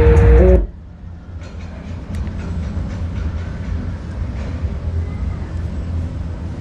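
Electronic music from a JBL Boombox 2 speaker at maximum volume cuts off abruptly about half a second in. What remains is a steady low rumble of outdoor background noise with a few faint clicks.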